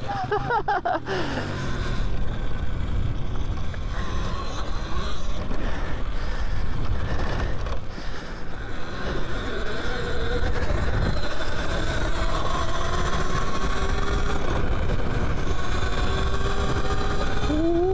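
Electric dirt bike riding on a dirt trail: the motor's whine slides up and down in pitch with speed over a steady low rumble, and rises sharply near the end.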